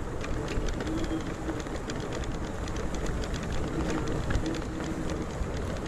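Vehicle tyres rolling through tall grass on a rough trail, with grass swishing and brushing against the vehicle and small rattles over the bumps. A faint low hum comes and goes.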